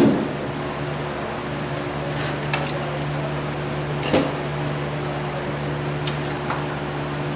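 A steady machine hum, with a sharp knock right at the start, another about four seconds in and a few lighter clicks between, as the cylinder head of a Subaru EJ253 flat-four is handled on the engine.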